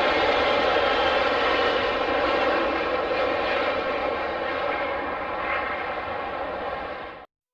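Boeing 777 airliner's jet engines running with a steady whine as it lands and touches down, slowly easing off, then cut off suddenly near the end.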